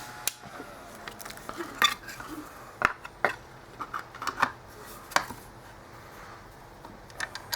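Scattered sharp clicks and clinks of small hard parts being handled, about eight in all and loudest around the middle, as the mini LED moving-head light is put back together.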